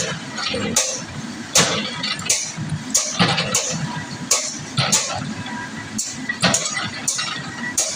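Excavator engine running while it knocks down a building, with repeated sharp crashes and clatter of breaking masonry and debris, several times a second apart.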